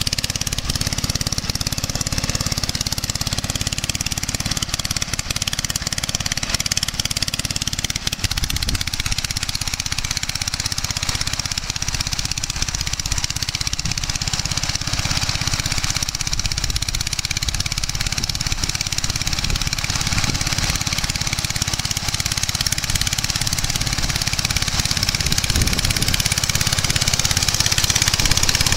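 Olympia reaper-binder at work cutting wheat, its engine and machinery running steadily, growing a little louder near the end.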